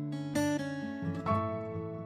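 Background music: an acoustic guitar playing, with new notes and chords struck every second or so.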